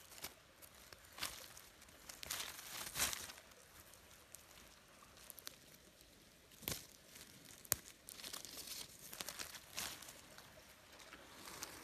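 Faint, irregular rustling and crackling of dry leaves and soil as a hand digs around and pulls up fleshy red plant stems from the forest floor, with one sharp click a little before eight seconds in.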